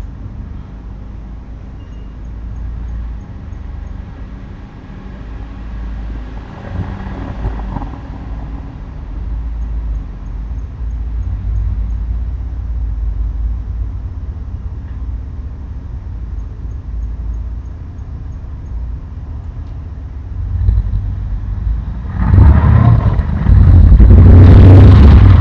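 Steady low traffic rumble from road vehicles outside, with a vehicle passing close and loud in the last few seconds.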